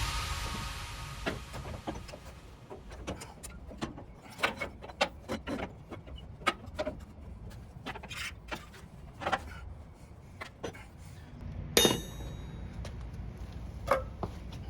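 Scattered metallic clinks and knocks of tools and suspension parts as a truck's front strut assembly is worked loose. A louder metal clank that rings briefly comes about twelve seconds in.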